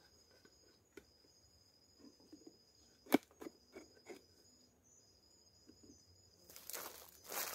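An insect trilling on a high steady note with short breaks, over a few sharp knocks and taps, the loudest about three seconds in. Near the end comes rustling and crunching in dry leaf litter, like footsteps.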